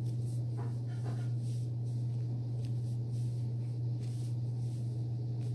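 A steady low hum with faint, soft rustles of handling over it.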